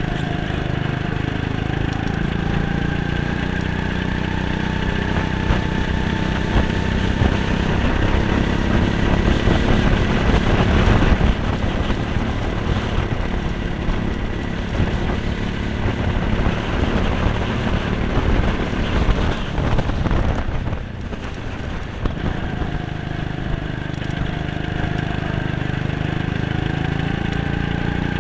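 Go-kart engine running at speed around a track, its pitch rising and falling as the kart accelerates and slows through the corners, over a heavy low rumble. About twenty seconds in the engine briefly drops off, then picks up again.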